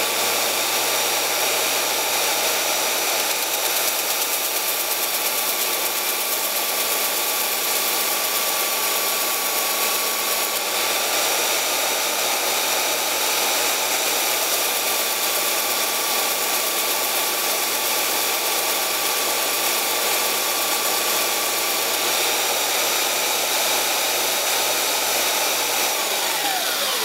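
A 4x24-inch belt sander running steadily with a 120-grit aluminium oxide belt, while an old steel chisel is ground flat against the belt. The sound is an even whine and rush. Near the end the motor winds down as it is switched off.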